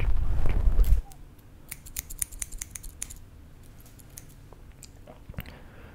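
Small metal scissors snipping close to the microphone in quick crisp clicks. The snips follow about a second of loud low rumble from handling right at the microphone.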